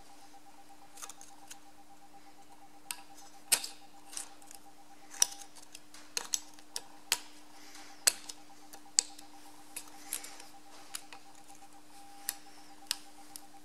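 Small screwdriver tip clicking and scraping in a freshly drilled-out bolt hole in a tractor axle hub, picking out steel swarf and leftover bits of thread from the broken brake drum retaining bolt. The clicks are sharp, metallic and irregular, over a steady low hum.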